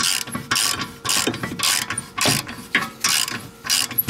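Hand ratchet clicking in repeated short strokes, about two a second, as it backs out a rear brake caliper bracket bolt.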